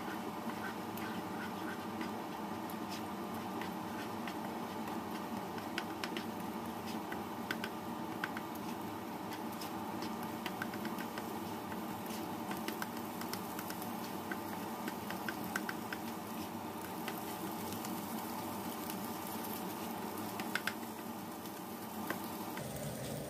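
Eggs with diced carrot and garlic frying in oil in a non-stick wok, sizzling steadily while a spatula stirs and scrapes them, with scattered small ticks. The eggs are being scrambled until just set.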